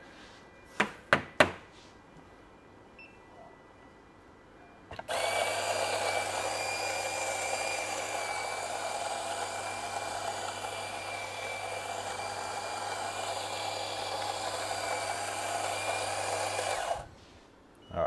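Small domestic electric espresso grinder grinding beans straight into a portafilter on a timed dose, running steadily for about twelve seconds and stopping suddenly. A few sharp clicks come first.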